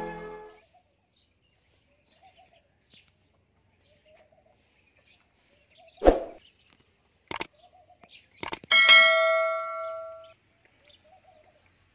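A metallic clang that rings on for about a second and a half, the loudest sound, preceded by a dull knock and a few clicks, with faint bird chirps in the background. Intro music fades out at the very start.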